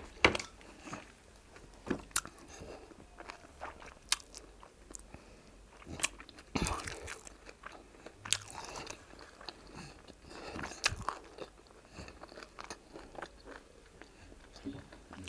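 Close-up eating sounds of fufu and egusi soup being chewed, with irregular sharp clicks and crunches every second or so.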